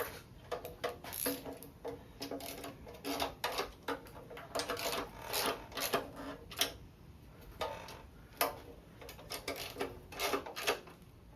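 Hand ratchet clicking in short irregular runs as the oil pan bolts are snugged down, with scraping strokes between them.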